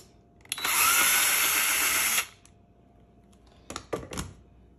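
Cordless drill-driver running for under two seconds, its motor whine rising slightly as it backs a screw out of a plastic vacuum filter housing. A few short clicks follow near the end.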